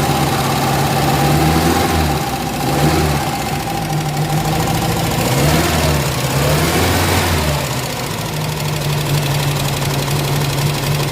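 Custom Toyota Corolla engine, running on a Suzuki Shogun motorcycle CDI ignition, idling steadily and revved briefly twice, with the engine note shifting and then settling back to idle.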